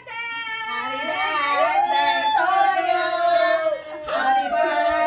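A woman's high voice singing long held notes that rise and waver, with a short break a little before four seconds in.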